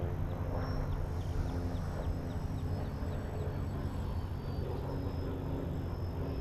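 RC model aerobatic plane's motor droning steadily as it flies overhead.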